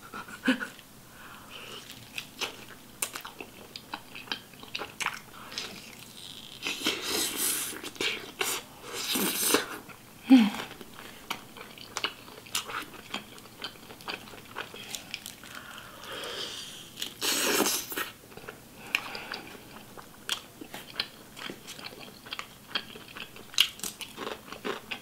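Close-miked chewing and biting of a grilled chicken leg: many sharp, wet mouth clicks and crunchy bites. A few longer, louder noisy stretches come in between, and a brief hum near the middle.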